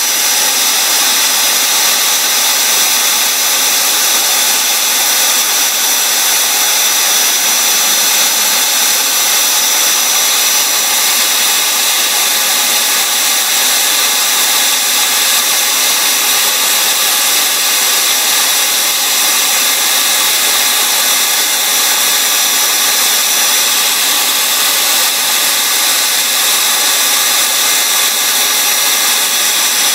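Electric drill running steadily at speed, spinning a cork fishing float on its rod while a strip of sandpaper is held against the turning cork, a constant high whine with the hiss of sanding.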